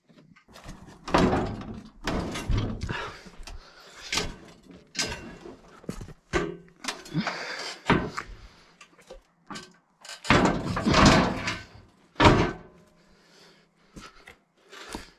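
Steel sawmill sawhead frame being shoved and wrestled onto its track rails: a loose series of metal bangs, thuds and scrapes. The heaviest knocks come about a second in, around the middle, and twice near the end.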